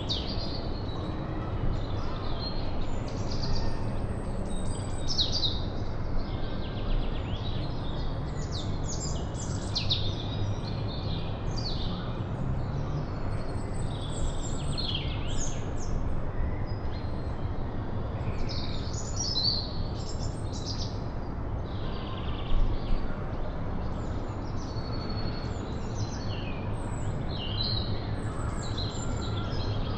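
Many small birds chirping and singing in quick, overlapping phrases, over a steady low rumble of wind. A single brief low bump comes about two-thirds of the way through.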